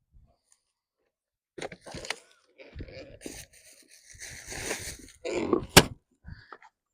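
Plastic bag crinkling and rustling in irregular bursts as it is handled and weighed down, with one sharp click near the end.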